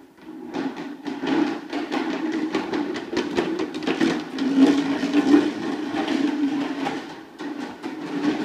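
Hard plastic wheels of a toddler's ride-on balance bike rolling fast over a ceramic tile floor: a loud, steady rumble with many quick clicks through it.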